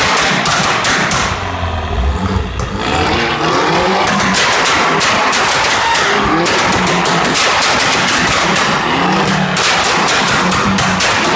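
Tuned MINI R56 four-cylinder engine revved again and again, its exhaust popping and banging in a rapid crackle: a tune that lights fuel in the exhaust to throw flames.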